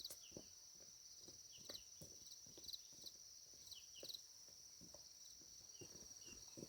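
Faint, irregular thuds of footfalls on a dirt path, several a second, under a steady high-pitched insect drone with occasional short chirps.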